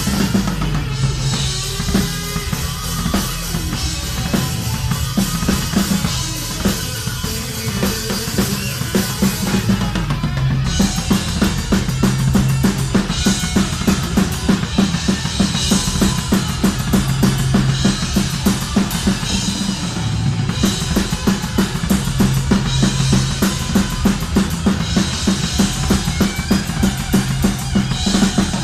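A live band plays an instrumental passage: a drum kit with heavy bass drum and snare, over low held notes that shift every second or two. About ten seconds in, the drumming turns into a fast, even stream of beats.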